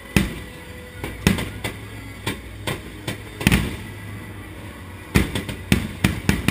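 Aerial fireworks shells bursting overhead: a dozen or so sharp booms at uneven intervals, coming in a quick cluster near the end.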